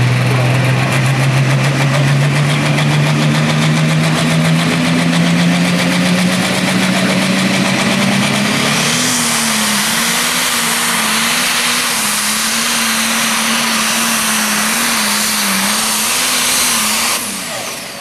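Pro Stock pulling tractor's diesel engine at full throttle dragging the weight sled: its pitch climbs steadily for about eight seconds, then a harsher, hissier sound joins and the revs waver up and down. The sound drops off sharply near the end.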